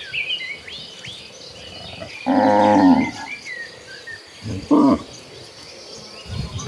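Cattle mooing in two short calls, the first about two seconds in and the second near five seconds, with a fainter low call near the end. Birds chirp in the first second or so.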